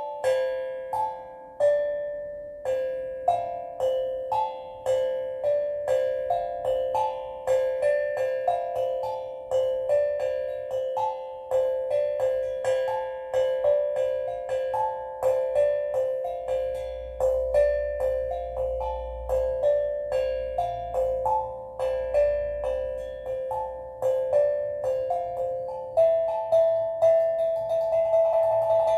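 Steel drum played slowly, single struck notes at about two a second, each ringing out and fading, in a calm meditative melody.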